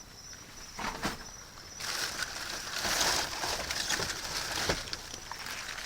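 Rummaging through dumpster trash: plastic and cardboard rustling and crinkling, with a few knocks, loudest a few seconds in.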